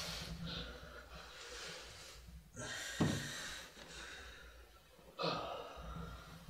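A man breathing heavily and gasping through clenched teeth in pain, a few ragged breaths with the loudest about three seconds in.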